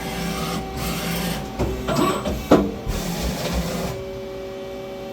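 Hwacheon Hi-Tech 200A CNC lathe running: a steady machine whine, broken about two seconds in by a few sharp clunks, each with a quick falling sweep.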